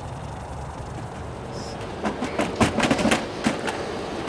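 Distant RV-6 light aircraft running steadily at taxi, a low rumble from its four-cylinder Lycoming IO-320 engine. About halfway through, a quick irregular run of sharp clicks and knocks takes over, made by parts being handled at the plane's nose.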